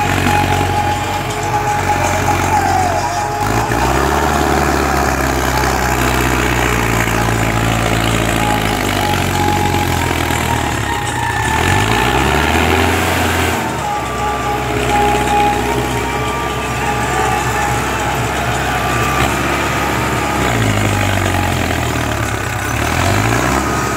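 Mahindra Arjun 605 tractor's diesel engine labouring under a heavy load, pulling two sugarcane-laden trailers. The engine speed rises and falls several times: about three seconds in, again around the middle, and again near the end.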